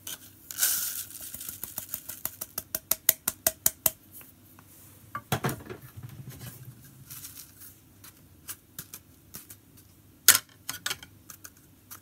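Ground coffee poured from a small metal cup into a paper filter, then the cup tapped rapidly, about six times a second, to knock out the last grounds, with a slight metallic ring. Later a dull thump and scattered clicks as the plastic dripper is handled and lifted.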